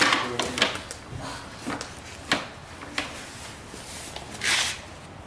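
A child's tricycle being handled as a toddler is lifted onto its seat: scattered light knocks and clicks of its plastic and metal parts, then a short rustle about four and a half seconds in.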